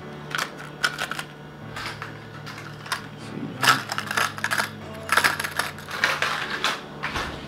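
Stiff plastic blister packs of fishing lures being handled: irregular clicks and crackling of the plastic packaging.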